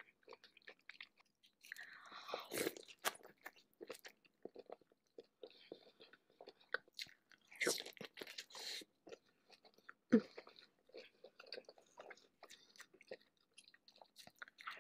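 A person biting and chewing lobster tail meat in a thick sauce: many small mouth clicks with louder bites about two seconds in, around eight seconds, and a sharp loudest one just after ten seconds.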